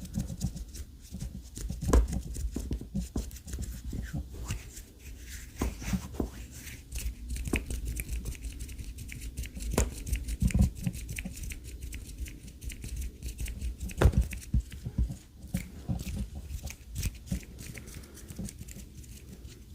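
ASMR hand sounds close to the microphone: a dense run of soft crackles and clicks, with a few louder clicks.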